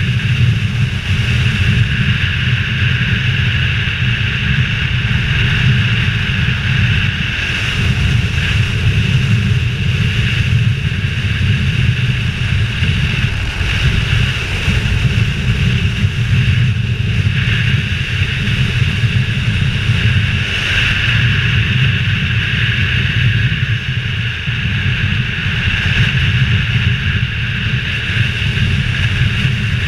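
Motorcycle cruising at a steady pace: its engine runs evenly under a heavy rush of wind over a helmet-mounted camera.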